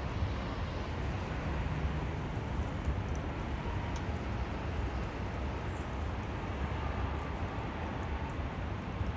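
Tram running, a steady low rumble with a faint whine.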